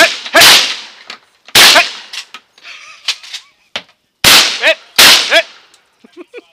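Shotgun blasts at close range: about five shots in an uneven string, two close together at the start, one about a second and a half in, then two more about four and five seconds in, each trailing off in a short echo.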